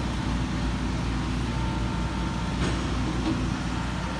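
Diesel engine of a Volvo EC55D mini excavator running steadily with a low rumble.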